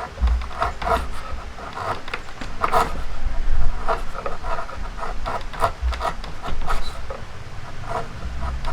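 Hand tool working wood: a series of short scraping strokes, a few a second and unevenly spaced, with occasional dull low thuds.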